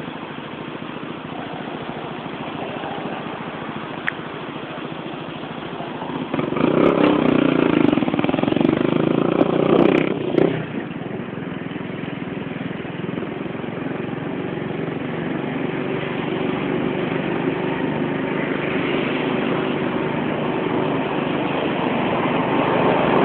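Motorcycle engine running under way with wind and road noise. It grows louder for a few seconds around the middle, then builds slowly again toward the end.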